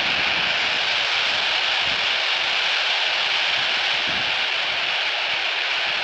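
Steady FM static hiss from a Baofeng handheld radio's speaker, tuned to the ISS downlink on 145.800 MHz with no voice coming through: the open-squelch noise between the astronaut's transmissions.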